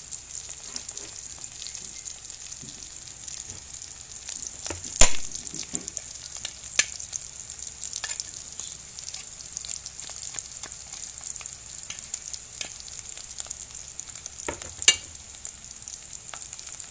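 Salagubang (June beetles) frying in oil in a wok: a steady high sizzle, with a metal ladle stirring them and knocking sharply against the wok a few times, loudest about five seconds in. The beetles are close to crisp and nearly done.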